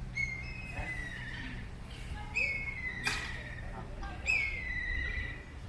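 Three high calls from an animal or bird, each about a second long, sliding down in pitch and ending in a wavering trill. A sharp click comes a little past the middle.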